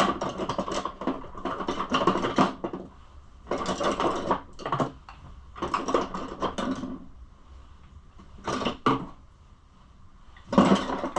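Small tools and metal parts scraping and clinking in irregular bursts as a dirt bike's carburetor is taken apart, with a quieter stretch near the end.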